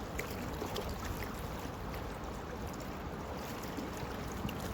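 Small river running: a steady rush of flowing water, with a few faint ticks.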